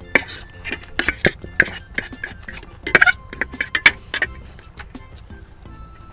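Eating utensils clinking and scraping against bowls as food is eaten fast: quick, irregular clinks, dense for about the first four seconds, then sparser and fainter.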